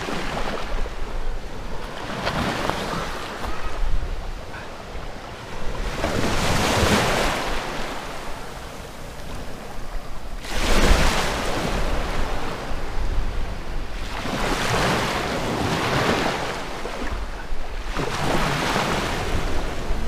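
Small sea waves breaking and washing in over a pebbly shore in shallow water, a rush of surf swelling and fading about every four seconds, with wind rumbling on the microphone.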